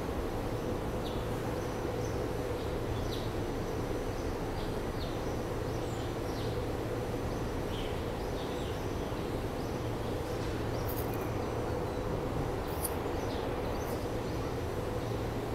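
Rail platform ambience: a steady low hum with short high chirps scattered throughout.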